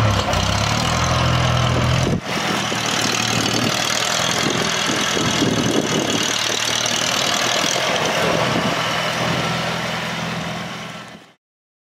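Restored 1967 Farmall Cub Lowboy tractor's small four-cylinder gasoline engine running as the tractor drives up a ramp into a trailer. The sound breaks off abruptly about two seconds in and resumes rougher and noisier, then fades out near the end.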